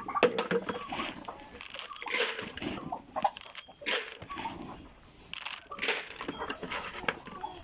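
Irregular crunching and rustling, about half a dozen short bursts, with faint animal sounds around them.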